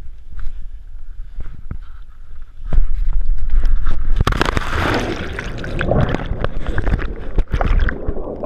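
Wind rushing over the microphone during a cliff jumper's free fall, then a splash as the body plunges into the lake about four seconds in, followed by muffled underwater bubbling and gurgling.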